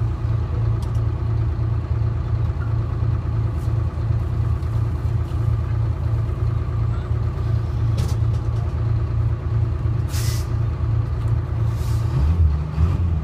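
Detroit Diesel 6V71 two-stroke diesel of a GMC New Look transit bus running steadily. A short hiss of air comes about ten seconds in, and the engine note changes near the end.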